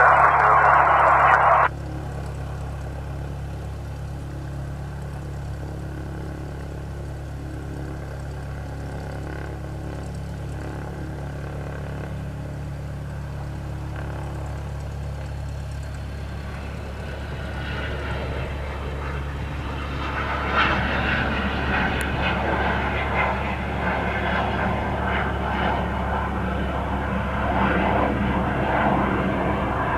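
Gulfstream G200 business jet's twin turbofan engines during its takeoff, a steady low hum that swells into a louder, fuller rush from a little past halfway.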